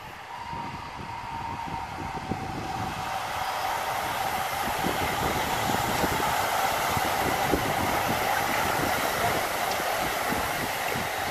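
A peloton of road racing bicycles sweeping past close by: a rush of many tyres on tarmac mixed with the fine clicking of freewheel hubs. It swells over the first few seconds and then holds loud and steady as the riders stream past.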